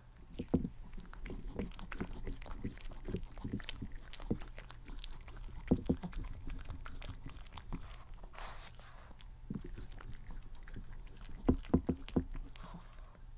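A small dog eating quail eggs off a glass tabletop: rapid, irregular chewing crunches and sharp clicks against the glass, with wet licking at the glass in between.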